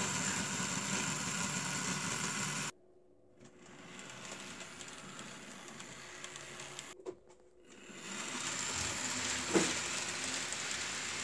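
Model trains running on a layout: a steady whirring of small electric motors and wheels on the track. It drops away abruptly a few seconds in, returns near the end, and a couple of light clicks stand out.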